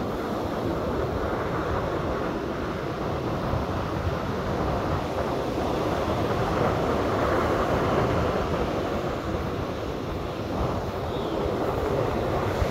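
Wind buffeting the microphone in gusts over the steady wash of breaking surf, swelling a little midway.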